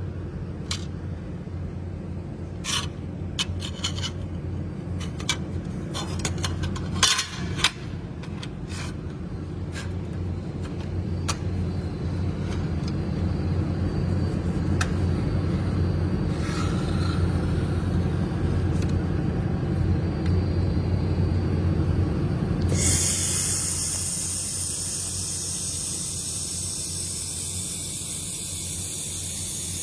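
Low steady hum of a handheld fiber laser welding machine, with scattered sharp clicks and knocks of metal being handled. About two-thirds of the way in, the hum drops and a steady loud hiss starts, like gas spraying from the welding torch.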